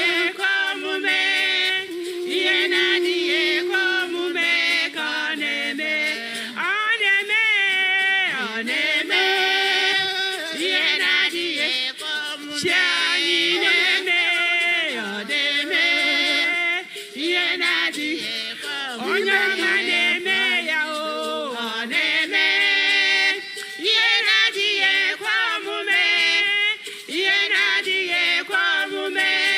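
Voices singing a song, with long wavering held notes.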